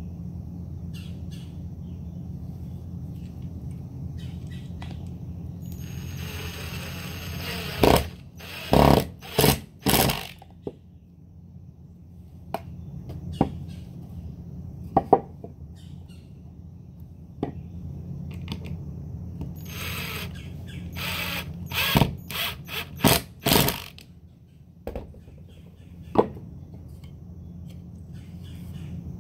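Ryobi cordless drill driving screws into a wooden planter box in two spells of short, loud runs, the first about seven seconds in and the second about twenty seconds in. Sharp knocks of boards being handled come between, over a steady low hum.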